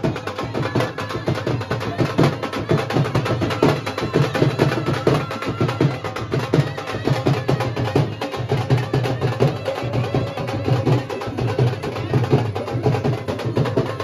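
Traditional Indian wedding music with fast, steady drumming and percussion.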